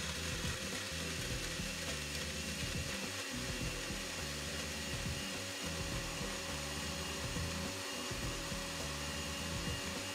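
Personal blender motor running steadily at full speed, puréeing chunks of mango and carrot with milk into a smooth smoothie.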